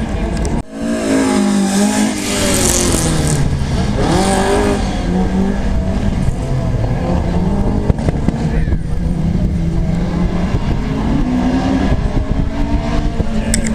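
Rally car engine blipped up and down a couple of times in the first few seconds, then running at a steady idle.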